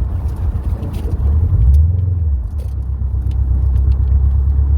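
Subaru WRX STI driving, its turbocharged flat-four engine and tyres making a steady low rumble. The drone swells about one and a half seconds in, then holds steady.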